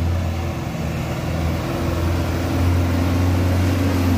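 Diesel engine of a Hino 300-series dump truck running as the truck drives slowly past, with its note rising a little in the second half as it pulls.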